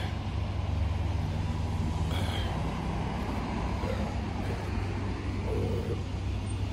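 Steady low rumble of road traffic, vehicle engines running on a nearby street.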